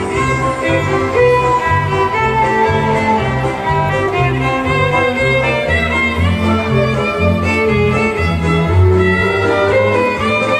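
Violin playing a melody over an accompaniment with a steady, pulsing bass line.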